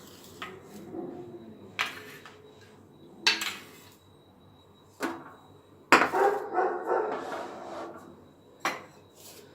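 A few sharp knocks and clinks of kitchen utensils and bowls being handled, some seconds apart.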